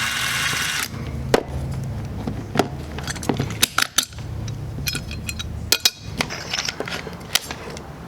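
Handling of tools and material: a string of sharp clicks and knocks, with a brief hissing burst in the first second.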